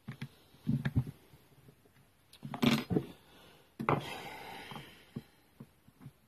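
Hand-work on a grass strimmer: clicks and knocks of parts and tools being handled, with two louder scraping, rubbing noises about two and a half and four seconds in.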